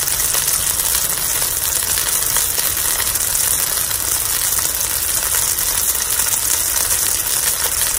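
Bánh xèo (Vietnamese rice-flour pancake) sizzling steadily in hot oil as its underside fries crisp.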